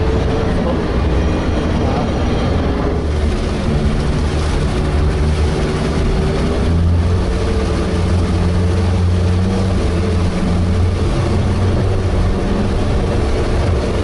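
Sherp amphibious all-terrain vehicle's diesel engine running steadily, its pitch dipping slightly and rising again.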